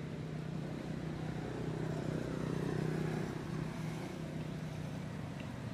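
A motor vehicle's engine running as it passes, swelling to its loudest about two to three seconds in and then easing off.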